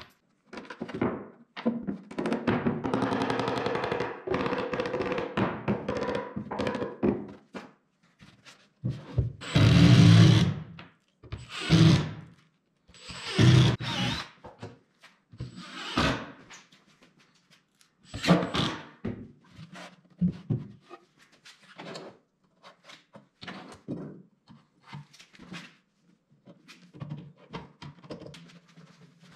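Wooden drawer boxes being handled and fitted: a few seconds of a power driver running, then a series of loud wooden thunks and knocks, and lighter knocks near the end as a drawer is slid into its cabinet.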